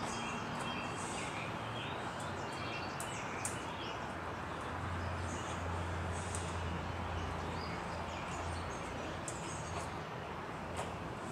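Used engine oil draining in a steady splashing stream into a drain pan. Birds chirp now and then, and a low hum comes in for a few seconds midway.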